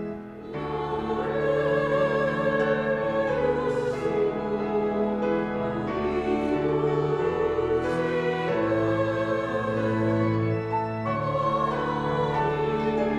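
Church choir singing a hymn anthem with piano and organ accompaniment, in sustained, held chords; the music briefly softens just after the start, then swells back in.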